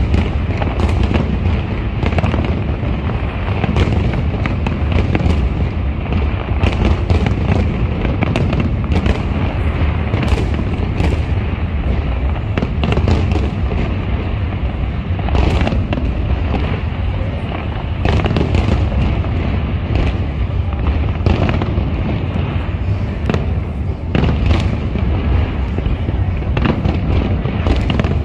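Large aerial fireworks display going off: a dense run of bangs and crackles from overlapping shell bursts, several a second, over a steady low rumble.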